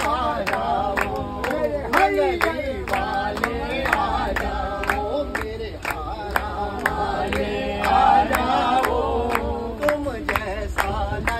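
A group of men singing a Hindi devotional bhajan together, with steady hand-clapping in time to the song.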